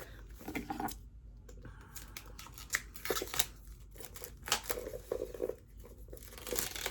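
Plastic wrap being picked at and peeled off a book, crinkling and crackling in short, irregular bursts.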